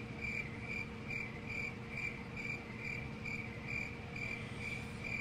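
Cricket chirping, short even chirps at about three a second, over faint steady room hiss.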